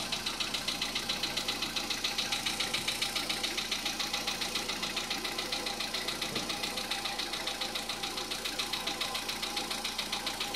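Volkswagen Polo Sedan petrol engine idling with a sharp, even knock at about seven beats a second. The owner cannot place the knock; it is the kind commonly blamed on worn hydraulic lifters.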